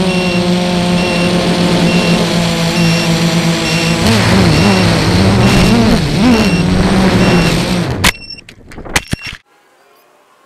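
FPV quadcopter's electric motors and propellers whining at a steady pitch, with a short high beep repeating about twice a second. The pitch wavers up and down several times past the middle. About 8 seconds in a sharp impact and a few knocks mark the crash that broke off a propeller, and the motor sound stops.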